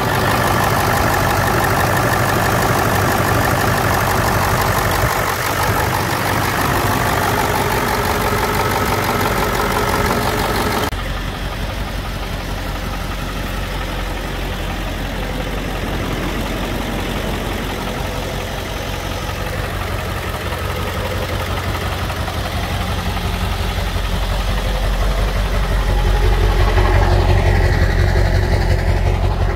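Early 1999 Ford F-250's 7.3 L Power Stroke turbo-diesel V8 idling steadily, purring after its first start in six months. About eleven seconds in, the sound turns abruptly duller and quieter. Near the end a deeper, louder rumble comes up close to the exhaust pipe.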